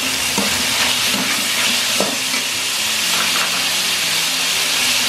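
Diced pork sizzling steadily in hot oil in a metal wok, stirred with a metal slotted spoon that clinks lightly against the pan a couple of times.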